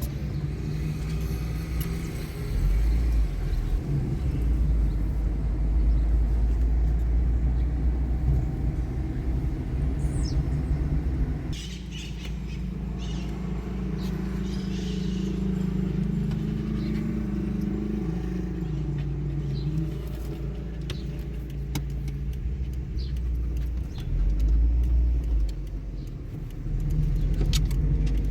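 A motor vehicle running, a continuous low rumble whose pitch steps up and down for a while in the middle.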